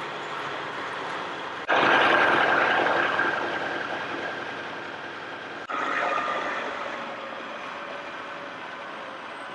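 Steady construction-site machinery noise with a faint high whine. It steps up suddenly in loudness about two seconds in and again near six seconds, easing off after each step.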